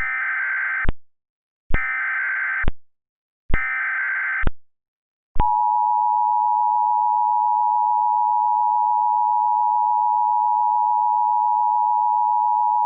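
Emergency Alert System SAME header encoding the tornado warning: three short bursts of buzzing digital data tones, about a second and a half apart. About five seconds in, the steady two-tone EAS attention signal starts and holds.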